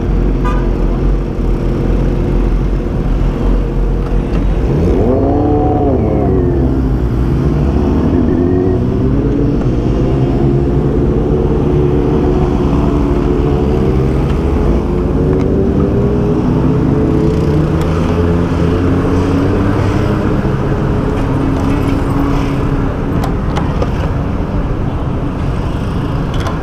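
Kawasaki ZX-10R inline-four engine running: a steady low note, a quick rev up and back down about five seconds in, then the engine pulling with its pitch climbing gradually and wavering as it rides on.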